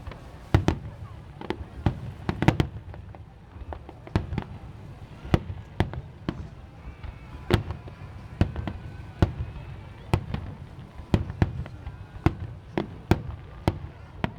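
Aerial fireworks bursting in a rapid, irregular series of sharp bangs, about one or two a second, each followed by a short echo.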